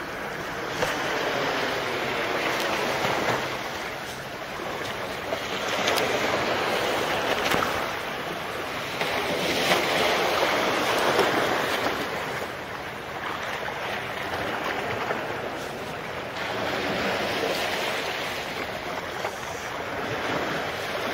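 Small sea waves breaking and washing along a concrete slipway, the surf swelling and easing every few seconds.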